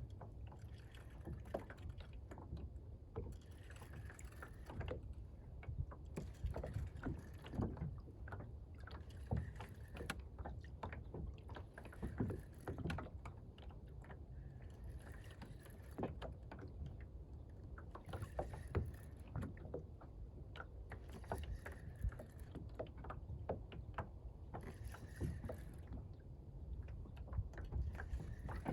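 Rod-and-reel fight with a catfish from a small fishing boat: frequent small clicks and knocks of reel and tackle over a steady low rumble of wind and water against the hull, with short hissy bursts every two to three seconds.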